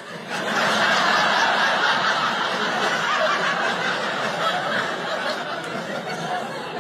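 Audience laughing: a crowd of many voices together, loudest at first and slowly dying down.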